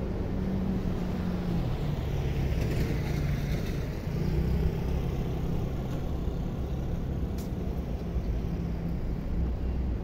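Street traffic: a steady low engine hum with cars passing, one going by with a swell of tyre noise a few seconds in.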